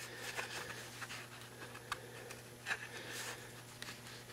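Quiet handling noises from working the front suspension: light scrapes and a couple of sharp metallic clicks as the lower ball joint is levered down with a bar, over a steady low hum.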